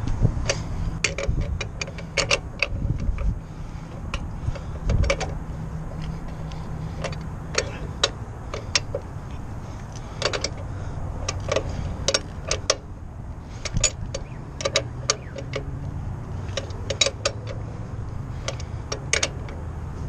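Irregular metallic clinks and rattles of the truck's factory tire-change tool rods being worked by hand, over a steady low hum.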